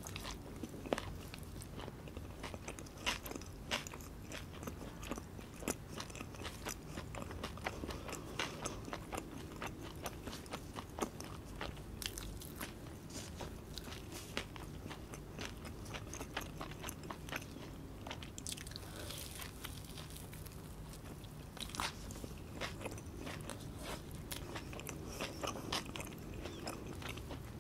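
Close-miked chewing and biting of meat-filled murtabak, with many small crunches of its crisp pan-fried crust and wet mouth clicks.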